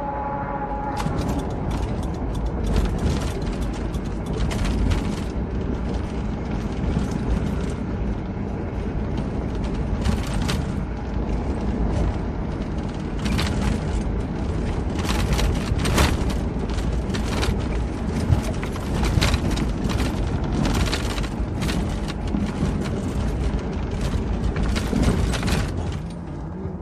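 Off-road vehicle driving over rough terrain: a steady low engine and drivetrain rumble with frequent sharp knocks and rattles as it bounces along.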